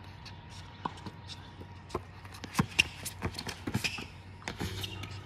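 A basketball bouncing irregularly during play, with sneakers scuffing and squeaking on the court. The thumps and scuffs come more often from about halfway in.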